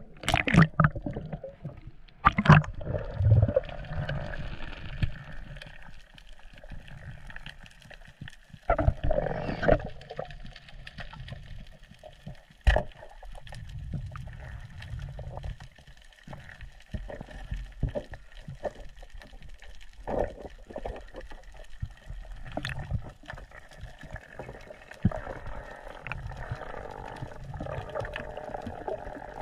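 Underwater sound at a diver's action camera: muffled water sloshing and bubbling, with loud splashy bursts in the first few seconds and scattered sharp clicks and knocks.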